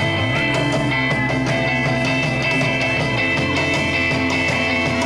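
Live rock band playing an instrumental stretch of a song, guitar to the fore over bass and drums, with no singing.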